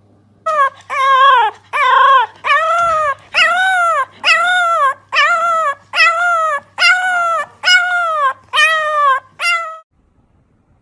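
A puppy giving about a dozen short, high howling yelps in a steady rhythm, roughly one a second. Each yelp rises and then falls in pitch.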